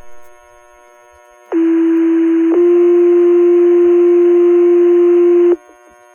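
Two-tone sequential pager alert tones broadcast over the fire department's radio channel to activate the firefighters' pagers: one steady tone for about a second, then a second tone at a slightly different pitch held for about three seconds, which cuts off sharply. Faint radio hiss lies before and after.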